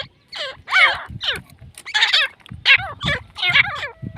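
Grey francolin calling: a fast run of loud, harsh, repeated notes, each bending up and down in pitch.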